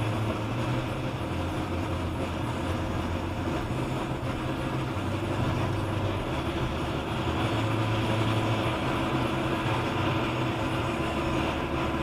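Steady road noise from a car driving on a wet road, heard inside the car: tyre hiss on the wet pavement over a low, even engine hum.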